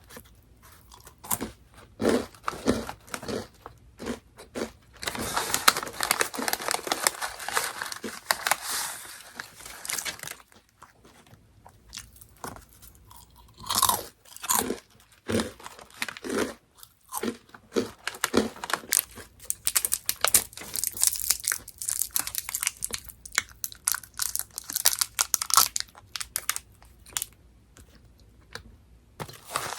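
Close-up crunching and chewing of Orion Mala Chicken Pop, a crisp snack, bitten and chewed in clusters with brief pauses between mouthfuls.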